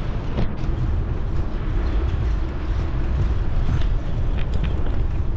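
Steady low wind rumble on the microphone of a moving bicycle, with a few faint clicks.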